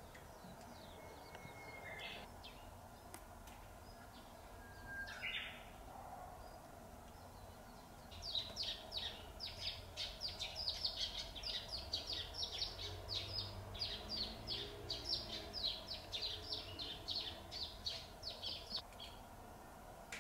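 Japanese bush warbler singing: twice the long held whistle and quick flourish of its hoo-hokekyo song, then from about eight seconds in a long rapid run of sharp repeated notes, about three a second, over a steady low background hum.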